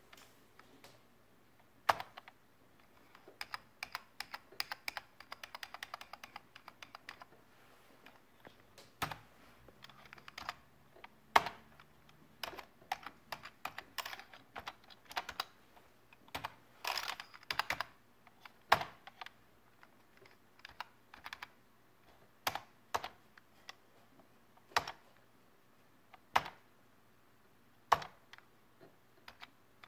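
Keys of a full-size PS/2 computer keyboard being pressed: single keystrokes at irregular intervals, with two quick runs of typing, one a few seconds in and one past the middle.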